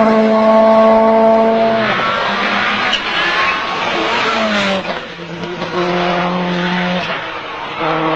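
Rally1 car's turbocharged four-cylinder engine held at high, steady revs. The pitch drops about two seconds in and settles again on a lower held note, with a rushing noise of tyres and loose surface in between.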